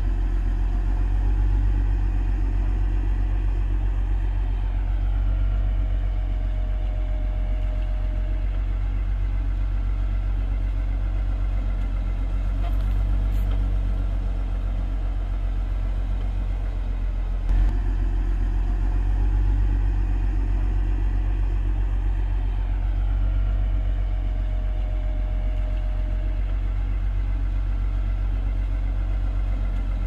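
Heavy earthmoving machine's diesel engine running steadily with a low, even rumble. A faint whine comes and goes twice, and there is one brief knock just past halfway.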